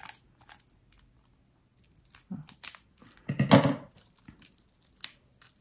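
Plastic shrink-wrap on a paperback book crinkling and tearing in short scattered crackles as it is picked and cut open with scissors, with a louder burst about three and a half seconds in.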